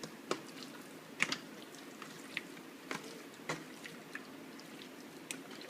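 Faint, scattered pops and clicks from a pan of cooking bell peppers, onions and zucchini, irregularly spaced over a low, steady background.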